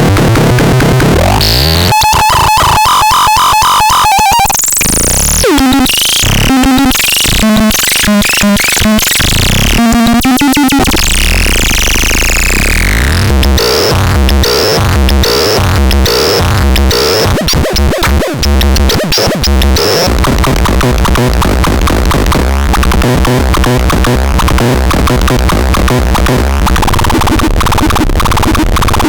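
Harsh, glitchy electronic noise from a synthesizer being demonstrated: stuttering, rapidly repeated tones and pitch sweeps over a dense noise bed. Partway through, a chirp repeats about once a second, and toward the end the sound breaks into fast crackling clicks.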